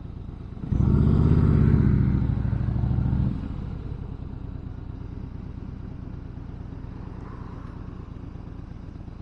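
Harley-Davidson Fat Boy Lo's V-twin engine pulling harder and louder for about two and a half seconds, then easing back to a quieter steady run.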